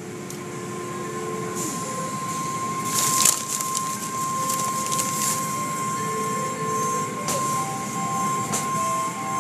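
Automatic car wash heard from inside the car: the hanging cloth strips and water spray swish and slap over the roof and windshield against a steady machine rumble, with a constant high whine. A louder burst of slapping comes about three seconds in.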